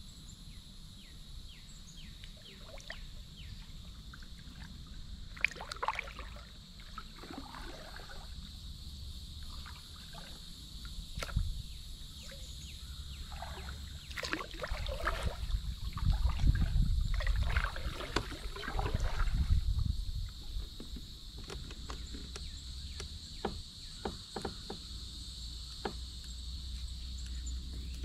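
A kayak being paddled: the blade dipping in and water splashing and dripping off it in irregular strokes, busiest in the middle, with low rumbling there too. A steady high insect drone runs underneath.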